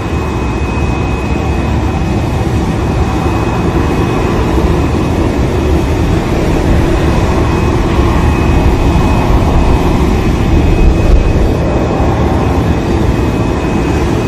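Steady jet aircraft engine noise on an airport apron: a deep rumble with a faint high whine held throughout, slowly growing a little louder.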